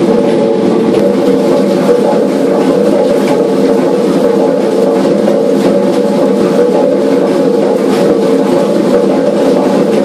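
A paddle steamer's steam engine running steadily under way. It makes a loud, even machinery din with light repeated knocks from the moving parts.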